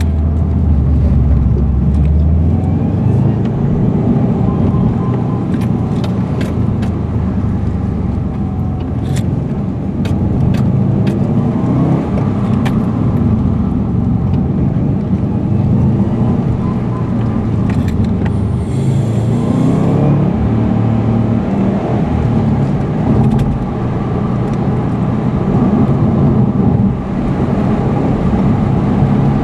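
Subaru Impreza's flat-four boxer engine running, heard from inside the cabin while driving, its pitch rising and falling repeatedly with acceleration and gear changes over steady road noise. Scattered sharp clicks come in the first half, and a short hiss about two-thirds in.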